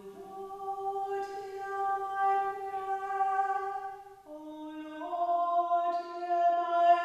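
A voice singing slow, long held notes, unaccompanied. The pitch drops about four seconds in and changes again a second later.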